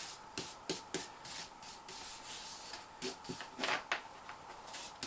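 A hand brush sweeping casting sand off a freshly cast aluminium table top that is still in its sand mould. The brush makes short, irregular scrubbing strokes, a few of them louder.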